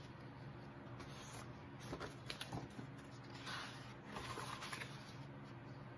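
Pages of a thin, slippery children's picture book being turned and flapped: a few soft paper rustles and taps over a faint steady hum.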